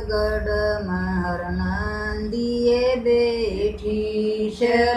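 Elderly women singing a Haryanvi Krishna bhajan in a chant-like folk melody, holding long drawn-out notes that slide from one pitch to the next.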